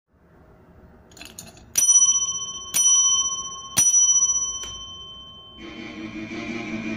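Metal desk bell (a 'Ring for Tea' counter bell) struck three times about a second apart by pressing its plunger, each strike ringing on and fading, followed by a fainter tap. Music starts near the end.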